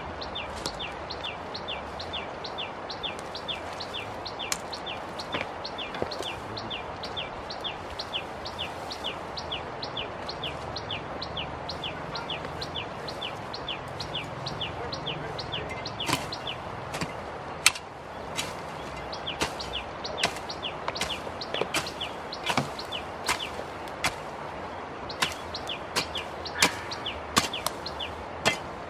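A short high chirp repeating steadily, about three times a second, over a steady outdoor hiss. Sharp scattered knocks come through now and then, louder and more frequent in the second half.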